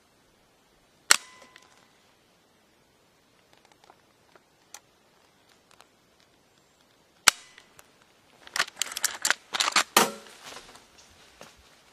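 Sharp metallic click from a Marlin lever-action rifle about a second in, with a brief ring after it: the hammer dropping with the crossbolt safety engaged, so the gun goes click instead of firing. Another sharp click comes about seven seconds in, followed near the end by a quick run of clicks and rattles from the rifle being worked.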